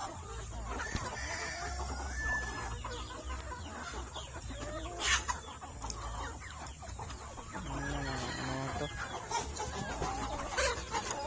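A flock of chickens clucking and calling over one another, with a sharper sound about five seconds in and again near the end.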